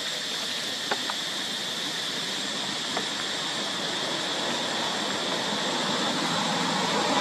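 Steady, even high-pitched outdoor drone with a few faint ticks about a second in and again around three seconds; no monkey calls are heard. It grows slightly louder toward the end.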